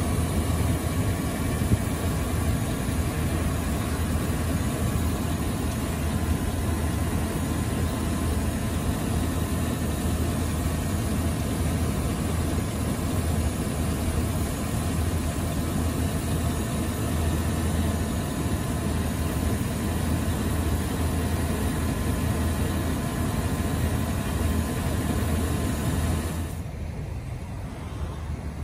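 2007 Chevy 2500 Heavy Duty pickup's V8 engine idling steadily, heard from over the open hood, becoming quieter about two seconds before the end.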